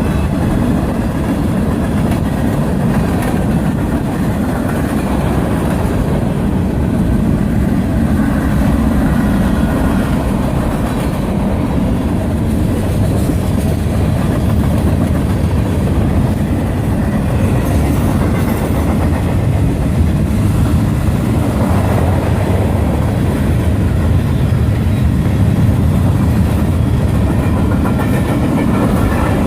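Freight train rolling past, its cars rattling and wheels clicking over the rail joints in a steady, loud run.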